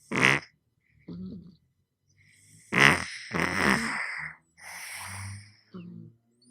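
Flat-faced exotic shorthair cat snoring in a breathing rhythm. There are two snores, each followed by a quieter breath; the second snore comes about three seconds in and is longer and louder.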